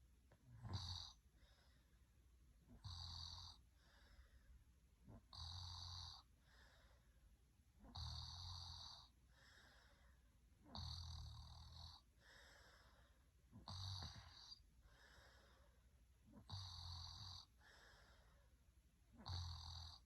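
A person snoring in a slow, even rhythm: a louder snore about every two and a half seconds, eight in all, each with a softer breath out between.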